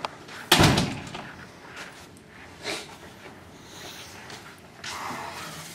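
A door slams shut with one loud bang about half a second in, then a much fainter knock a couple of seconds later.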